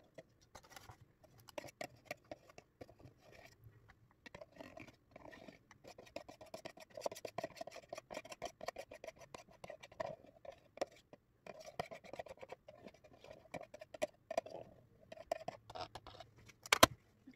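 Thin plastic tub crackling and scraping in the hands as a thick creamy liquid is poured slowly out of it, with a sharp click near the end.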